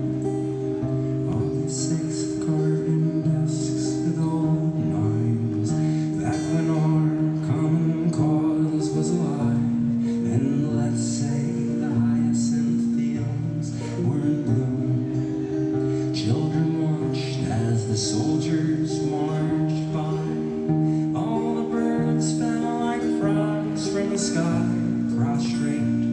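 Acoustic guitar strummed steadily, sustained chords ringing as the opening of a song.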